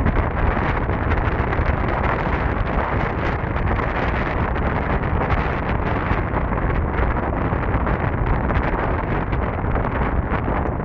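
Steady, loud wind noise buffeting the camera microphone while riding a Solar R1 electric scooter at speed.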